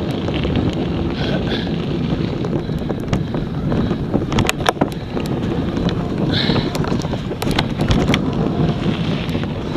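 Wind buffeting an action camera's microphone on a moving mountain bike, over a steady rumble of tyres on a dirt trail, with sharp rattles and clicks from the bike over bumps.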